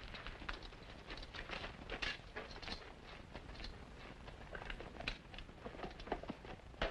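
Men and horses moving about: irregular footsteps, scuffs and small clicks.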